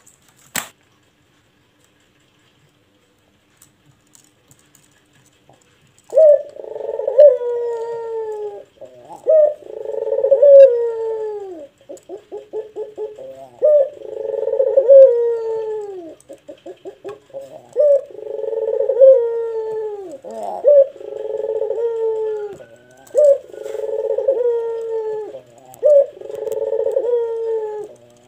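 Caged puter (Barbary dove) cooing: long, deep phrases repeated one after another from about six seconds in, with quick stuttering runs of short notes between some of them. A single sharp click comes just before, near the start.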